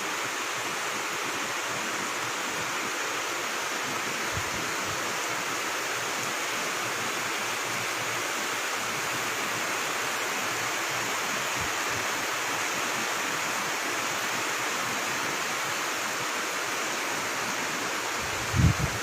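Steady rush of floodwater, an even noise with no pauses. A short low thump comes near the end.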